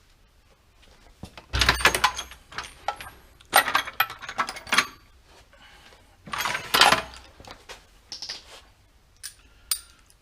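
Metal hand tools clinking and rattling as they are picked up and handled, in several bursts of clatter.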